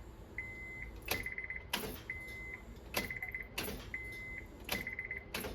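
Honda Civic's dashboard warning chime sounding with the key in the ignition, in a repeating pattern: a short run of rapid beeps alternating with one longer steady beep about every two seconds, with sharp clicks in between.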